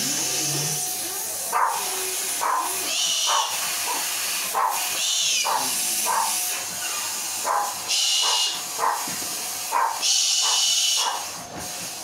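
A galah (rose-breasted cockatoo) giving short harsh calls about every half second, with longer hissing sounds twice near the end, its defensive reaction to a vacuum cleaner. A steady motor hum and hiss, typical of a running vacuum cleaner, lies under it.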